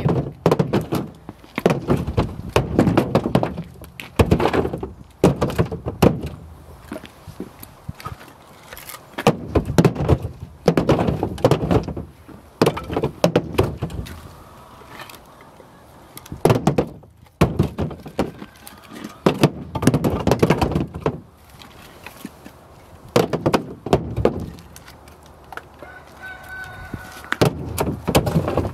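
Split firewood pieces tossed onto a pile, wood clattering and knocking on wood, a few pieces at a time every second or two with short pauses.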